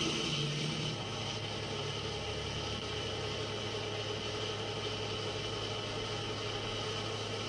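Steady engine noise of military vehicles, a low even hum under a constant hiss.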